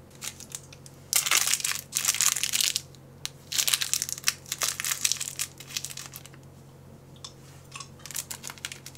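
MRE ration food packaging being crinkled and crushed in the hands: two long bursts of loud crackling in the first two-thirds, then lighter, scattered crinkles and ticks.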